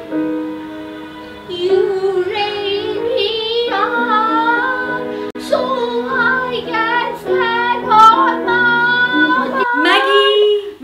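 Electronic keyboard chords, then a woman's solo voice enters about a second and a half in, singing with a heavy, wide vibrato over the sustained keyboard accompaniment.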